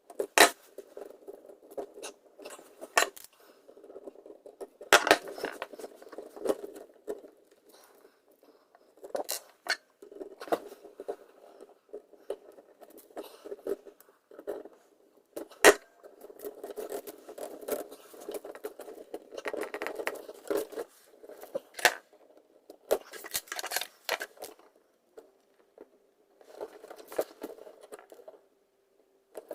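Hands working electrical wiring: irregular sharp clicks and taps with stretches of scraping and rubbing as wires, wire nuts and tools are handled and twisted together.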